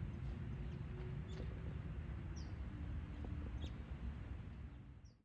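Bird chirps outdoors: short, high calls about once a second over a steady low rumble, fading out at the very end.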